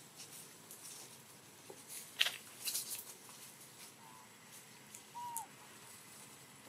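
Faint outdoor background with a few soft clicks and rustles about two to three seconds in, and two brief faint chirps later on, the second falling in pitch.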